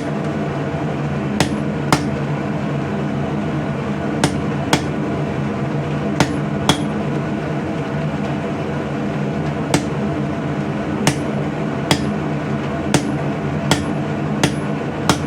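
A 3-pound hand hammer striking hot coil-spring steel on an anvil to cut off the excess material. About fourteen sharp, ringing blows come at an uneven pace, often in pairs, over a steady low hum.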